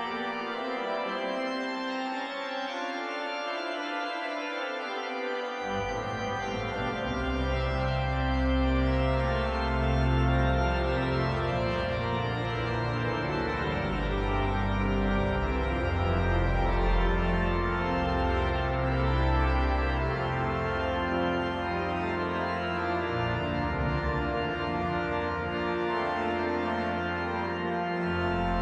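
Hauptwerk virtual pipe organ, played from a two-manual console, sounding a slow chorale prelude in sustained chords. A deep pedal bass comes in about six seconds in and carries on beneath the manuals.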